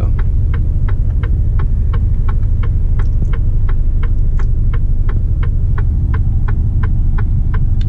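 Truck cab turn-signal indicator ticking steadily, about three ticks a second, over the low rumble of the truck's diesel engine idling while it waits at a junction.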